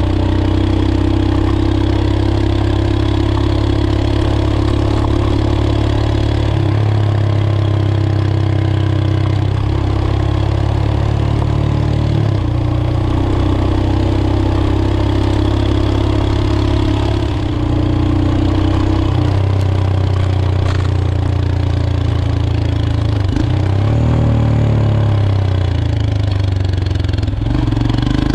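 Motorcycle engine running at a steady riding pace, its note shifting in steps every five or six seconds as speed changes.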